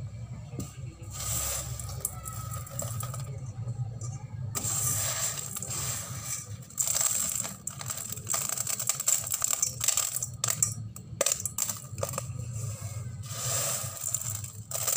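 Dry cooked rice grains rattling and scraping against a stainless steel bowl as a hand stirs them and tilts the bowl, in uneven rustling bursts with sharp clicks. A low steady hum runs underneath.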